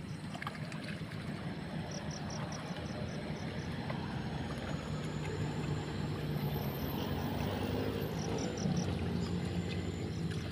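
A small engine running steadily with a low hum that swells a little midway. Quick, high chirps come in several short runs over it.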